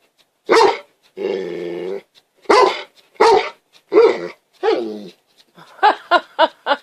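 A dog vocalizing back in a series of short, pitched, bending calls, with one longer, steadier low call about a second in. Near the end it breaks into a quick string of short yips, about five a second.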